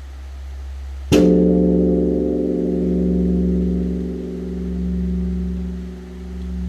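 Large bronze Korean temple bell (beomjong) struck once with a wooden log striker about a second in, over the deep hum still ringing from the previous stroke. It rings on long, its low hum swelling and fading in slow waves.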